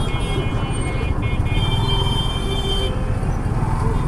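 Congested street traffic heard from a slow-moving motorcycle: a steady low rumble of engines and road noise. A high-pitched tone sounds over it through the first three seconds.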